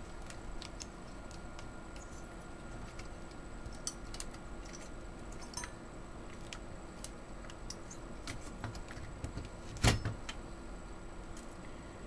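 Small scattered clicks and light rattles of hands working a stock AMD CPU cooler's clip onto the motherboard's retention bracket, with one sharp, louder snap about ten seconds in as a part clicks into place.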